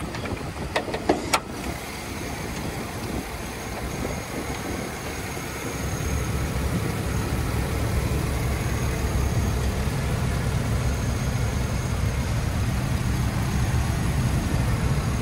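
Chevrolet Vortec gasoline V8 idling steadily, getting louder about six seconds in. A few sharp clicks sound about a second in.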